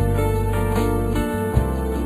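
Instrumental background music with sustained low bass tones under a melody; the bass note changes about one and a half seconds in.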